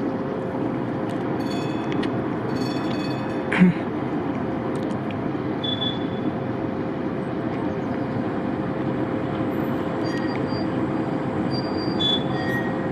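Measuring tram car 5521 running on the track: a steady rumble with a constant whine, and a few short squeaks and clicks, one about three and a half seconds in.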